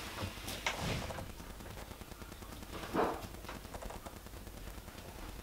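Small plasterboard patch being pressed into a hole in a plasterboard wall: a few light knocks in the first second, then a dull thump about three seconds in, the loudest sound, as it seats in place.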